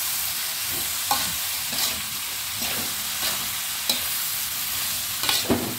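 Sliced bitter melon stir-frying in a hot wok: a steady sizzle, with a metal ladle scraping and knocking against the pan several times as the vegetables are tossed.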